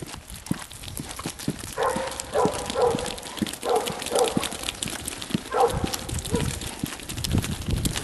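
Sheep hooves clicking on wet asphalt as the flock walks. A dog gives a series of short barks between about two and six and a half seconds in.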